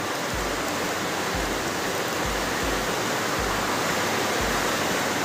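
Heavy rain falling steadily, a constant even hiss, with soft low thuds every second or so underneath.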